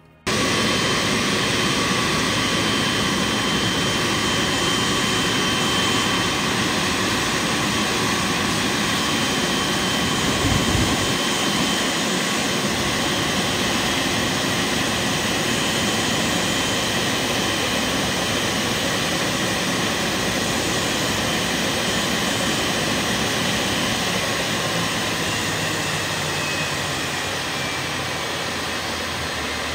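Steady jet aircraft noise: an even rush with constant high whining tones, and a brief low swell about ten seconds in.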